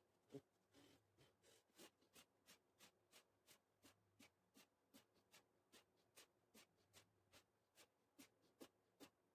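Faint, even train of short sounds, about three a second, from a man doing Hindu squats, with the recording sped up fourfold.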